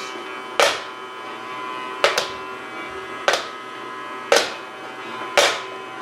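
Toy vacuum cleaner's small electric motor running with a steady hum, with sharp knocks about once a second as its plastic nozzle is bumped and set down on the laminate floor.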